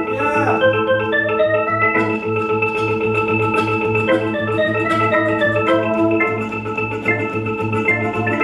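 Live band music: a harmonica plays a bending melody over held reed chords, with a steady low pulse about four times a second underneath.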